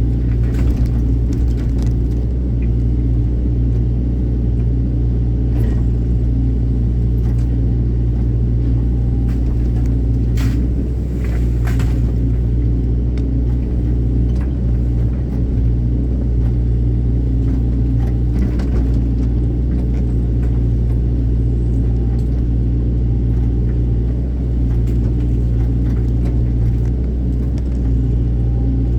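Excavator's diesel engine running steadily with a deep, even rumble. A few short sharp clicks or cracks sound over it, the strongest about ten to twelve seconds in.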